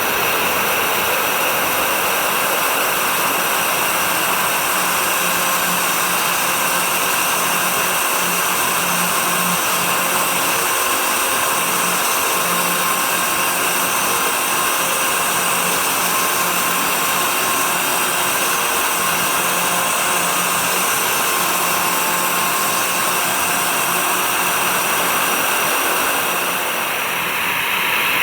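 A CNC 3018 Plus desktop router at work, its spindle motor running together with the steady suction noise of a dust extraction system. The noise dips briefly near the end.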